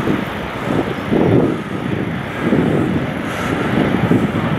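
Freight train of tank wagons rolling past behind an electric locomotive: a steady rushing rumble of wheels on the track that swells several times.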